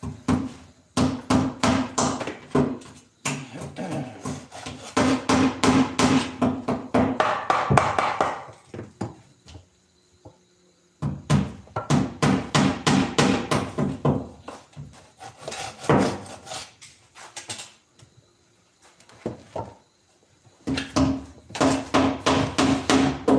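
Rapid hammer blows on wood, knocking the joints of a wooden chair frame together. They come in about five bursts of several seconds each, with pauses of a second or two between.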